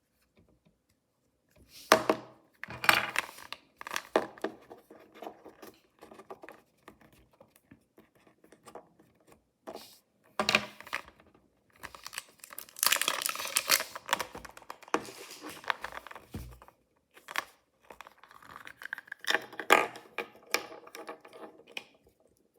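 Mystery toy packaging being torn open and crinkled by hand, in an irregular string of short tearing and rustling bursts with brief pauses between them.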